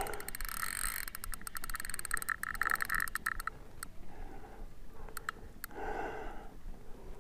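Fishing reel ticking rapidly for about three and a half seconds while a big fish is being played on the line, then only a few scattered ticks.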